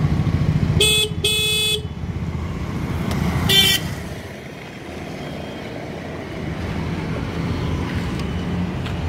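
Aprilia SR 150 scooter's electric horn honked three times: two short beeps close together about a second in, then a shorter one about two seconds later.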